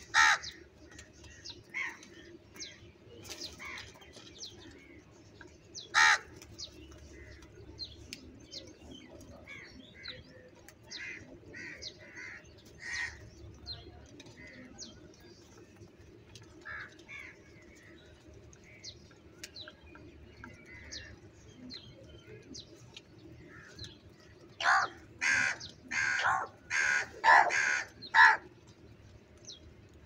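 House crows cawing at intervals, with single loud caws near the start and about six seconds in. Near the end comes a run of about seven caws in quick succession.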